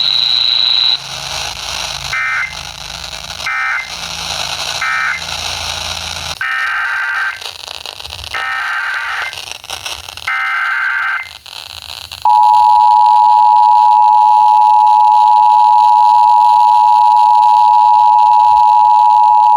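Emergency Alert System tones between two weather warnings. First come three short warbling data bursts, the end-of-message code closing one warning, then three longer data bursts carrying the next warning's header. About twelve seconds in, the steady, loud two-tone EAS attention signal begins and holds.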